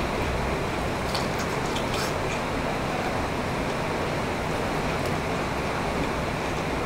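Steady rain, a dense even hiss that does not let up, with a few faint small clicks of eating about one and two seconds in.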